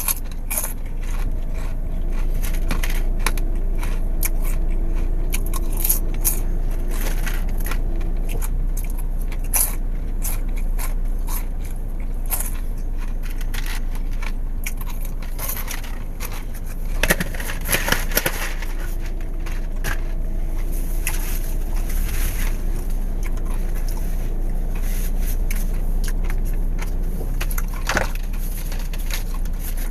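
Close-up crunching and chewing of caramel popcorn, with scattered crackles, over a steady low hum inside a car cabin.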